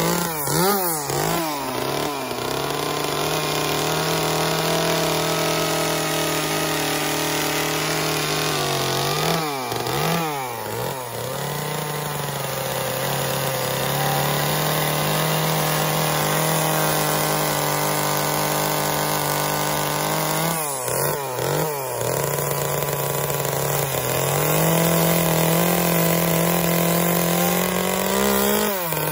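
Gas chainsaw running under load as it cuts into a wooden carving. Its engine note holds steady but dips in pitch and picks up again four times, about ten seconds apart.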